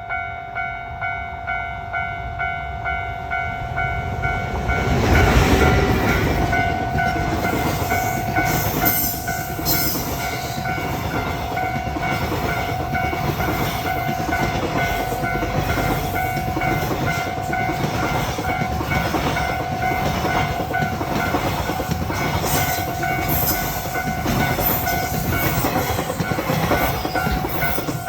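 Japanese railway level-crossing alarm ringing its repeating two-to-three-a-second tone. About four seconds in, a train arrives and runs through the crossing, a loud rumble with the clickety-clack of its wheels over the rail joints, while the alarm keeps ringing.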